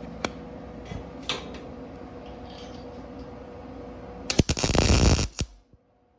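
Welding arc from a Miller 215 welder tacking a steel hook onto the cart: a loud, dense crackle that starts about four seconds in and lasts about a second, then cuts off suddenly. Before it there are a few light clicks over a steady hum.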